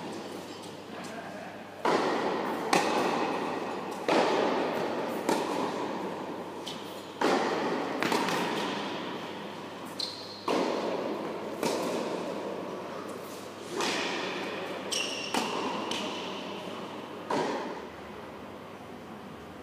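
Tennis rally: a tennis ball struck by rackets and bouncing on a hard court, sharp pops every second or so that echo in a large indoor hall, with a couple of short high squeaks. The hits stop near the end as the point finishes.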